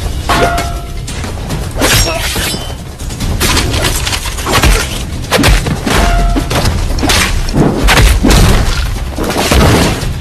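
Film action sound effects: a rapid series of loud crashes, shattering and heavy thuds, with music underneath.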